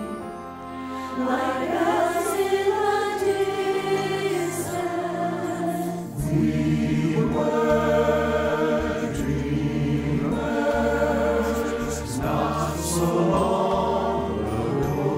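A choir singing slow, sustained notes in close harmony. About six seconds in, a deeper low part comes in and the sound grows fuller.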